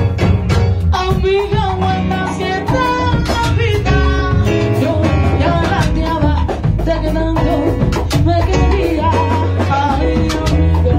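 Live Cuban salsa band playing, with a drum kit and a woman singing the lead.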